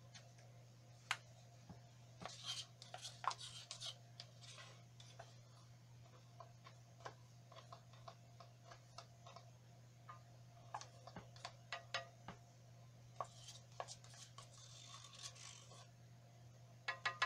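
Faint scattered clicks, taps and short rustling scrapes of gloved hands handling paint cups and painting supplies, in two spells, over a steady low hum.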